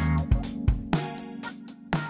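Background music: guitar and drums with a steady beat, thinning out and quieter in the second half as the bass drops away.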